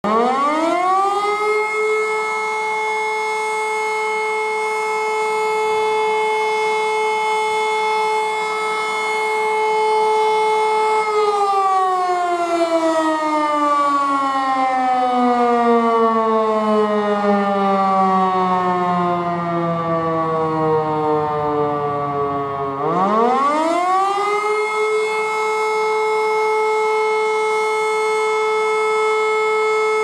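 Rooftop electromechanical siren with a mushroom-shaped cap, sounding a test. It spins up to a steady tone that holds for about ten seconds, then winds down with slowly falling pitch. About 23 seconds in it spins up again to the same steady tone.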